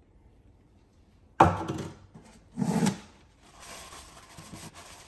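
A sharp knock about a second and a half in and a second clunk a second later as the throttle body and spray can are handled, then a paper towel rubbing inside the bore of a Porsche Boxster 986 throttle body as it is wiped clean.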